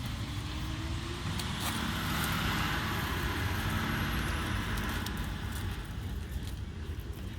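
A vehicle passing by: a noisy rush swells to a peak around the middle and then fades away.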